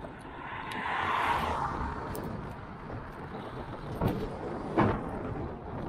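A car passing close by on the adjacent road, its tyre and engine noise swelling to a peak about a second in and then fading away, over steady wind and rolling rumble. Two short thumps come near the end.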